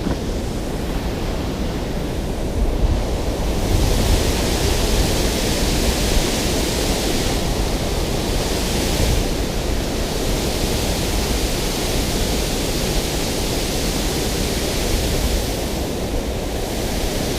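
Steady rush of water pouring through a dam spillway: an even hiss and roar across all pitches, whose higher hiss grows stronger a few seconds in and eases near the end.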